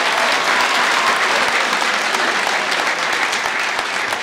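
Crowd applauding: a dense, steady patter of many hands clapping that eases slightly near the end.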